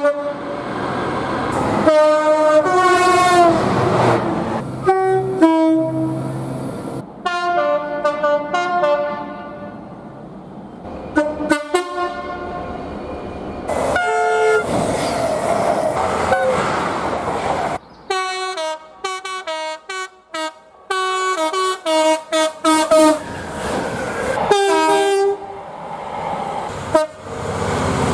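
A string of train horns sounding one after another, each a chord of several tones, cut abruptly from one recording to the next. Between some blasts there is the noise of a passing train, and in the second half a series of short, sharp horn toots comes in quick succession.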